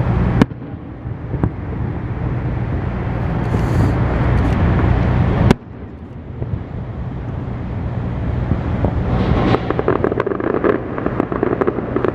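Fireworks display heard from afar: a continuous low rumble with wind on the microphone. Dense crackling starts about nine and a half seconds in.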